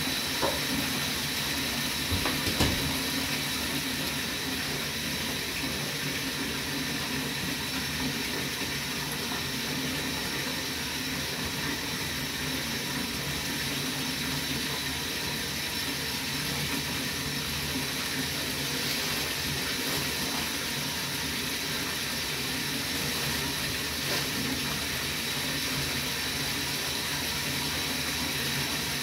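Steady rush of running water from a bath tap, with a low steady hum underneath and a couple of soft knocks in the first few seconds.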